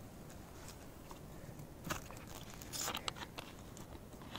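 Faint handling noise: gloved hands gripping a plastic Pepsi bottle and twisting at its cap. It gives scattered clicks and a short crackle of plastic near the middle.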